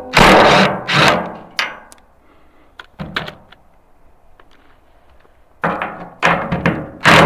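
Heavy knocks at uneven intervals during the wheelbarrow's reassembly, each ringing out briefly; three close together at the start, a quieter stretch in the middle, then a quick run of knocks near the end.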